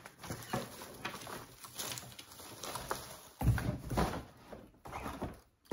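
Rustling and light clicks of artificial floral picks and their packaging being handled, with a louder, low handling sound starting about three and a half seconds in.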